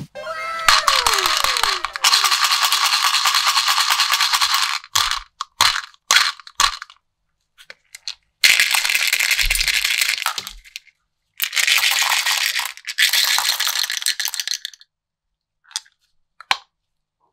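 Hard candy-coated chocolates pouring and rattling into and out of a small toy treasure chest in three long runs, with sharp clicks between them. A few falling whistle-like effect tones sound near the start.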